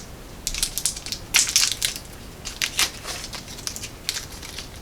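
Plastic wrapper of a chocolate coconut candy bar crinkling and crackling in irregular bursts as it is pulled open.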